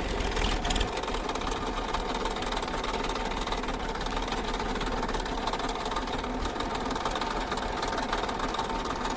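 Diesel engine of a heavy machine running steadily with a fast, even clatter.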